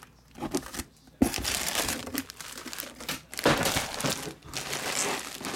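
Clear plastic bag crinkling and rustling as a bagged football jersey is handled and lifted out of its box, beginning about a second in with a sharp knock.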